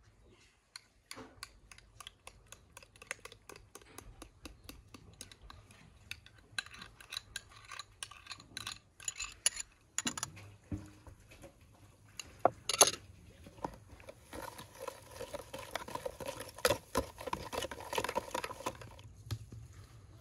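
Wire whisk beating batter in a plastic mixing bowl in quick ticking strokes, about three or four a second. Partway through there are a few sharp clinks of a spoon against small glass bowls as ingredients are scraped in. After that the whisking turns faster and denser for several seconds.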